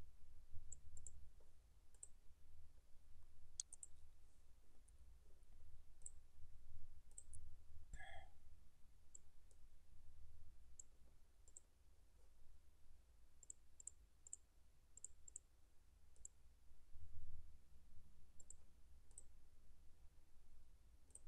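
Faint computer mouse clicks, irregular and several in quick pairs, over a low rumble of background noise.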